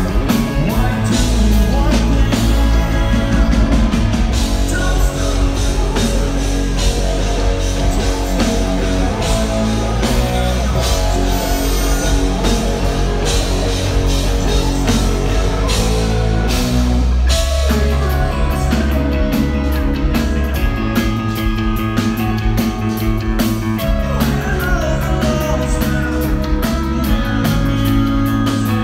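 A rock band playing a song live at sound check: a drum kit, guitars and bass, with a singing voice.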